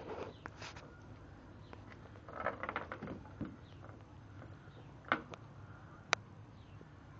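Shih tzu puppy mouthing and licking an ice cube on wooden decking: scattered small clicks and scrapes, a cluster of them a little over two seconds in, then two sharp clicks about a second apart.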